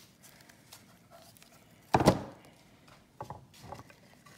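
A wooden painting panel handled on a tabletop: one dull thunk about two seconds in, then a few lighter knocks.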